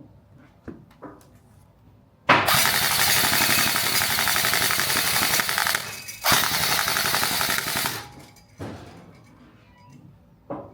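Gel blaster firing on full auto. A long burst of rapid shots starts about two seconds in and runs nearly four seconds, then after a brief pause comes a second burst of under two seconds. A few light clicks come before and after the bursts.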